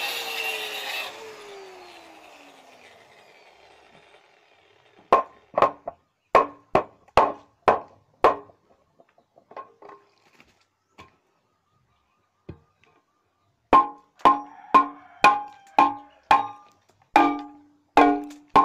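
Angle grinder working on a rusty steel pipe cuts off about a second in and winds down with a falling whine. Then come two runs of sharp knocks, about two a second, as the pipe is struck with a metal rod to knock off rust scale.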